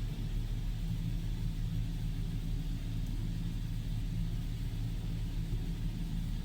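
Steady low rumble and hum heard from inside a car's cabin in an automatic car wash, with an even hiss above it.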